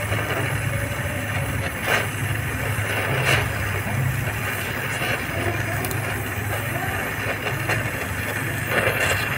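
Gas welding torch flame burning against car sheet metal, a steady hiss over a low rumble, with three sharp cracks about two and three seconds in and near the end.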